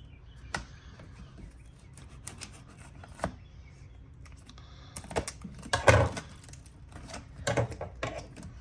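Cardboard box packaging being handled and pried open by hand: scattered clicks and taps, with louder rustling, scraping and knocks a little over halfway through.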